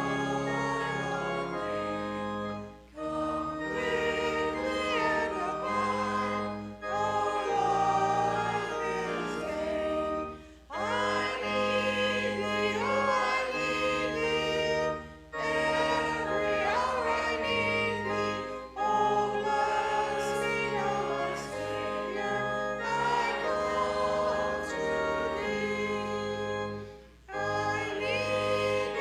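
Church hymn sung by many voices with instrumental accompaniment, in phrases separated by short breaks.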